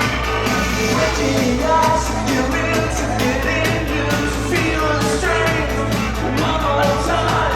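Live electronic band music with a steady kick drum about twice a second, and a voice singing over it from about a second in.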